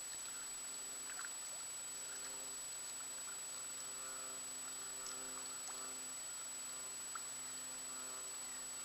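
Kayak paddle strokes: small, faint splashes and drips as the blades dip into calm water, a few scattered times, over a steady hiss and a faint hum of several steady tones that grows slightly stronger in the second half.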